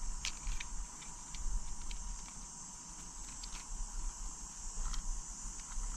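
A few light, scattered clicks of Minn Kota Ultrex trolling-motor parts being handled and slotted back together, over a steady high-pitched hiss.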